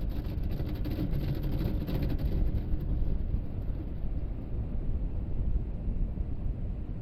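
Steady low rumble of a pickup truck's engine and road noise heard from inside the cab, with a faint engine hum in the first few seconds.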